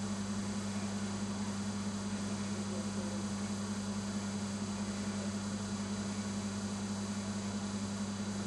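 Steady low electrical hum over a faint background hiss, unchanging throughout.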